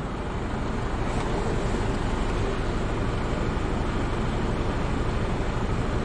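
Semi-truck's diesel engine running steadily, heard from the cab as a low rumble that grows louder over the first second and then holds steady.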